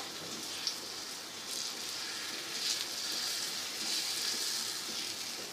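Semolina-and-egg batter sizzling in hot ghee on a tawa: a steady frying hiss that grows a little louder midway.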